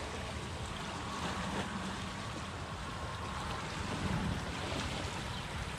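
Small waves washing steadily onto a shallow shore, with wind rumbling on the microphone.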